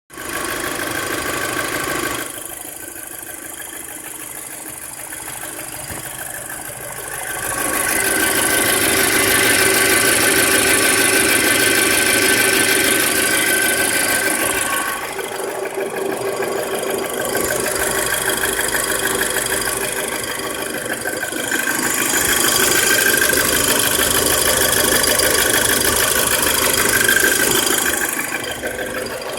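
Audi A4 B7 2.0 TFSI turbocharged four-cylinder engine running, with a tick that the owner is asking about. Its loudness drops a couple of seconds in, rises again about eight seconds in, then dips briefly twice.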